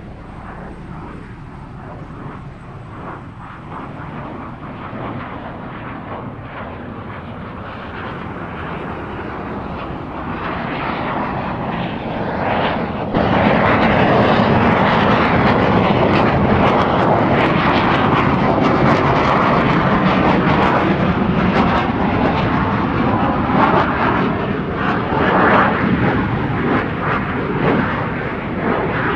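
MiG-21's R-11 turbojet running in a flyby, growing steadily louder. About thirteen seconds in the afterburner lights, with a sudden jump to a much louder, fuller jet noise that stays loud, swelling now and then.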